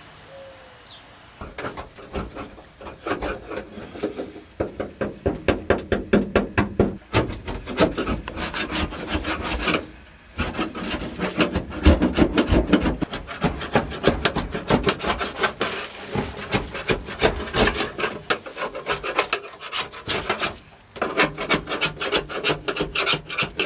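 Sound deadener being scraped off a car's floor pan: rapid repeated scraping strokes, several a second, that start about a second and a half in and pause briefly twice.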